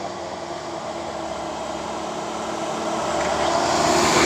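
A motor vehicle's engine running steadily and growing louder toward the end as it draws nearer.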